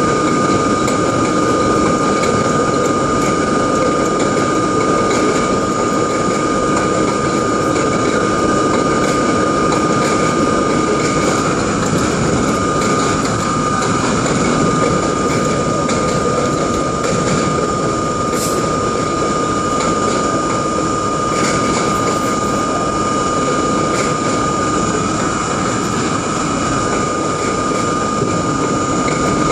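R32 subway train running at a steady speed: a loud, constant rumble of wheels on rail with a steady high whine over it and a few light clicks from the track.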